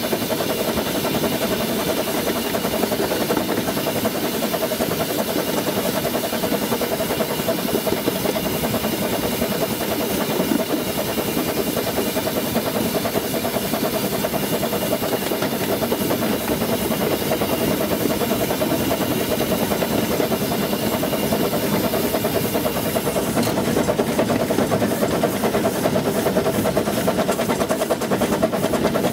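Baldwin 4-6-0 tank steam locomotive heard from its footplate while running: a steady hiss of steam over the rapid rattle and clatter of the engine and cab. About 23 seconds in the high hiss drops away and the rattling comes to the fore.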